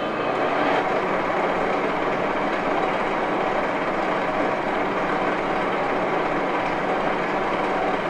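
1941 Axelson gear-head engine lathe running steadily, its gears giving an even mechanical hum with no change in pitch or rhythm.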